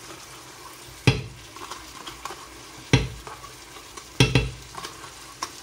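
Tomato-onion masala sizzling gently in a non-stick frying pan as whisked yogurt is spooned in and stirred. About four sharp knocks come from utensils against the pan.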